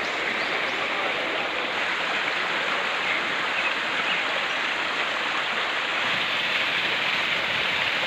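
Small rocky forest stream running and splashing over rocks in a steady rush of water.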